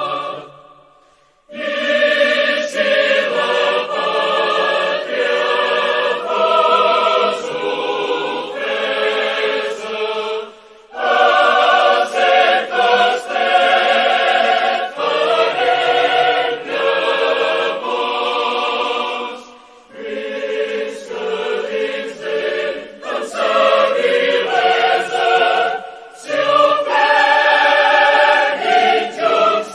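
A choir singing a song in Catalan, in long phrases separated by short pauses.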